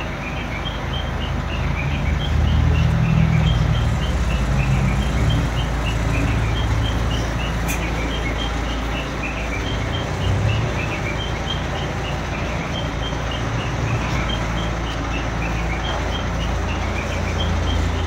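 Mobile crane's diesel engine running steadily, with an electronic warning alarm playing a short tune of high beeps over and over on top of it.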